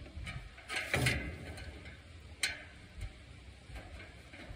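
A few scattered clicks and knocks from hand work on the tractor's dash, with a short clatter about a second in and a sharp click midway. Wind rumbles on the microphone underneath.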